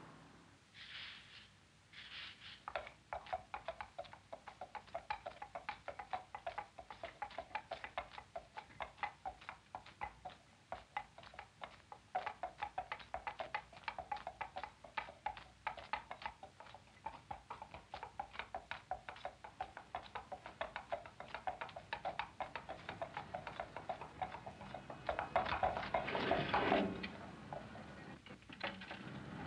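Horse's hooves clopping on a paved street at a steady trot, about four beats a second, from a kalesa's horse. A louder rush of noise swells briefly near the end.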